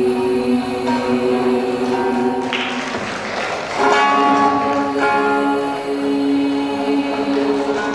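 A small girls' vocal ensemble singing a West Javanese regional song in harmony, holding long chords. About two and a half seconds in, the held chord gives way to a breathy, noisy moment, and a new chord is held from about four seconds in.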